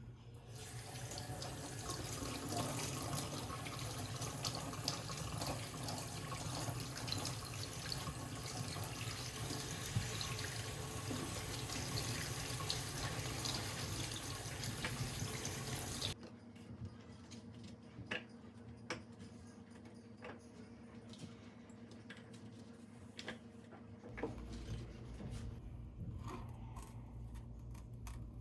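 Water running from a tap into a sink, shut off abruptly about sixteen seconds in. A few light clicks and knocks follow.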